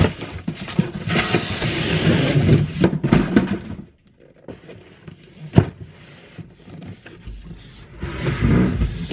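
A large, heavy cardboard box being handled and slid on a wooden workbench: cardboard scraping and rustling for the first few seconds, a sharp knock about five and a half seconds in, then more scraping near the end.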